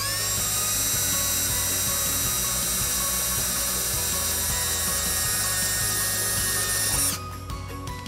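Cordless drill with a twist bit boring a hole through the bottom of a bumper: a steady high whine that spins up at the start and stops suddenly about seven seconds in.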